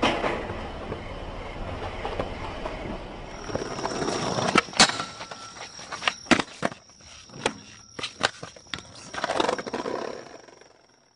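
Skateboard rolling on pavement, with a series of sharp clacks and knocks from the board from about four seconds in. A steady high-pitched whine runs under the clacks, and the sound fades out near the end.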